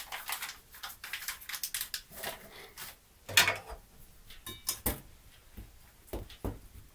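Scattered clicks, taps and knocks of a baker handling a measuring spoon, packets and a stainless steel mixing bowl of flour, with one louder knock about three seconds in and a brief metallic clink soon after.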